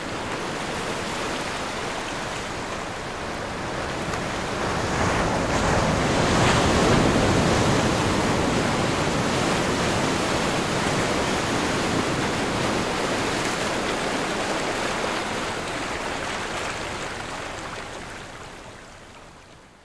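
Ocean surf breaking and washing up a beach, a steady rush of waves that swells in the middle and fades out near the end.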